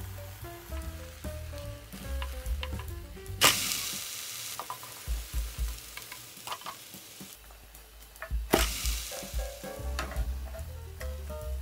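Tofu and vegetable pancakes sizzling in oil in a square pan. There are two sudden loud bursts of sizzling, about three and a half and eight and a half seconds in, as each pancake is flipped onto its uncooked side. Light background music plays underneath.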